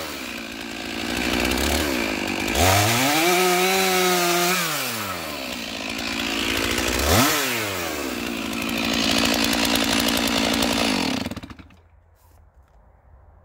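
Stihl 461 chainsaw cutting through a locust log, its engine revving up and dropping back several times, then shut off about eleven seconds in.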